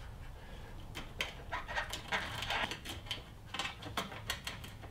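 Irregular small clicks, scrapes and rustling as a wire pick and a taped wiring harness are worked through a hole in a car's sheet-metal inner fender panel.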